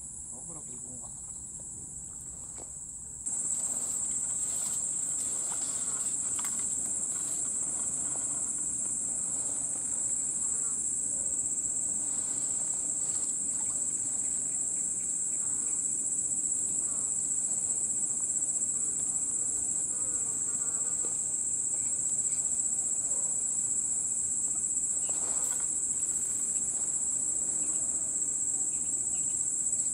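Steady high-pitched drone of an insect chorus, which gets louder about three seconds in and then holds unbroken.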